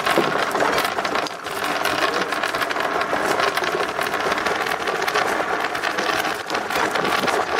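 Dozens of marbles and small balls poured out of a cup, rolling and clattering down a sloped wooden board drilled with holes: a dense, continuous rattle of many small clicks.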